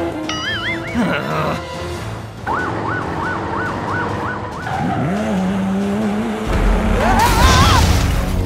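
Cartoon sound effects for toy vehicles over background music. Near the start there is a wavering warble. Then comes a regular two-tone, siren-like beeping at about three steps a second, and near the end a loud noisy rush with a wavering rising whistle.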